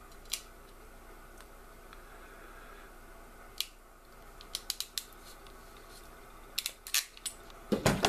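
Hand crimping tool being squeezed onto an N-type coax connector's crimp sleeve: scattered sharp metallic clicks, a single one at first, then small quick groups. A louder clack near the end as the tool is opened and the connector comes free.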